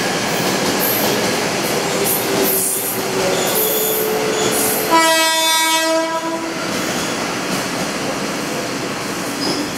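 A train horn sounds once, for about a second and a half, about halfway through, over the steady noise of a train running through the station.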